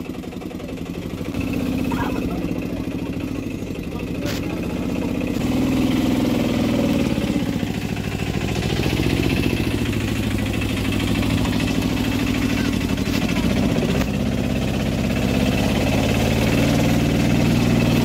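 Auto-rickshaw's small engine running under load, getting louder and higher about five seconds in, then running steadily, heard from inside the cabin.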